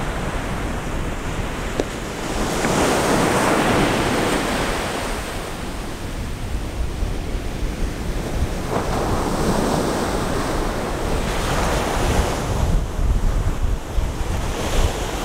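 Ocean surf breaking on a beach, two waves swelling up and washing out, with wind buffeting the microphone.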